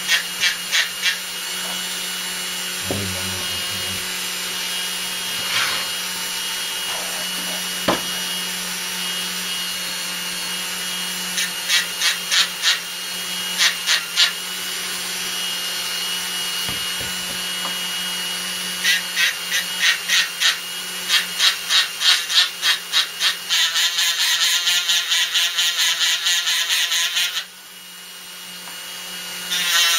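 High-speed rotary drill running at about 8,000 revs, its 600-grit wet-and-dry abrasive disc sanding a scratch out of a wet glass paperweight. Under a steady motor whine, the disc grinding on the glass gives a rasp that pulses about twice a second in several stretches. The rasp grows louder a few seconds before the end and drops away briefly near the end.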